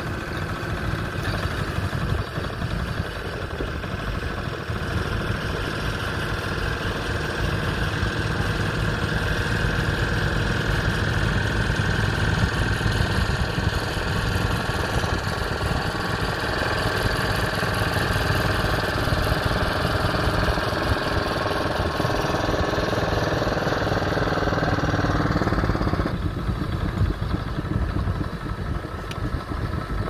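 Lister 0.6-litre single-cylinder petrol engine of a 1952 Trusty Steed tractor running steadily while pulling a single-furrow plough through soil. The sound turns duller about four seconds before the end.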